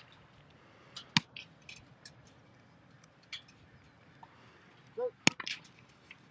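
Scattered sharp clicks and taps over a low background. The loudest is a single sharp snap about five seconds in, just after a shouted "Go."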